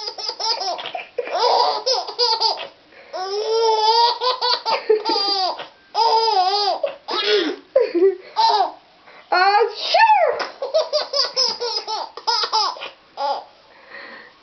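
Baby laughing in repeated high-pitched fits, about seven bouts with short pauses between them, set off by its mother's sneezing.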